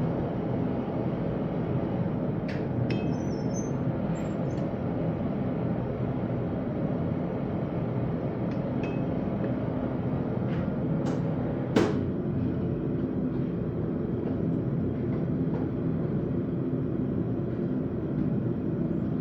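A forge running with a steady roar and a low hum, with a few faint clicks and one sharper metallic click about two-thirds of the way through.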